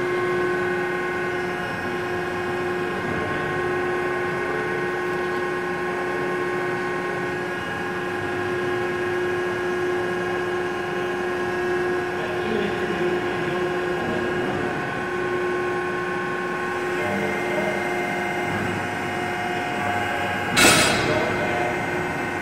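Davi CNC plate roll running a program empty, with no plate in the rolls: its hydraulic drive hums steadily with several whining tones that shift partway through. A sharp clunk sounds near the end.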